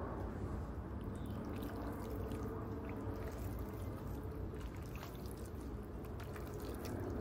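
Hand squishing and tossing slices of raw chicken breast in an oily marinade in a glass bowl: wet squelching and slapping with small crackles throughout.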